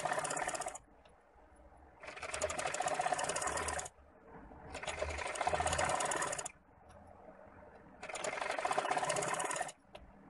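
Sewing machine stitching in short runs of about two seconds, four times, with brief stops between them, the needle going up and down fast and evenly.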